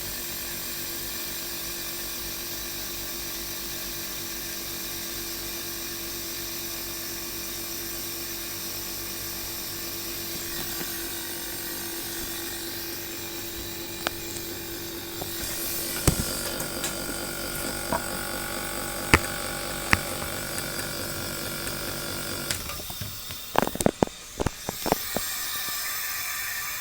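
Compressor of a disassembled portable air conditioner running with its fans removed: a steady hum with several held tones, the odd noise the owner is asking about. About halfway through the tones change and the sound grows a little louder, with a few sharp clicks, then a quick run of clicks and knocks near the end.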